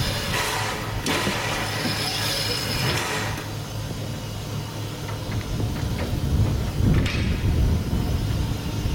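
Steam hissing from a standing Brighton Terrier tank locomotive, two hisses in the first three seconds and a brief one about seven seconds in, over a steady low rumble.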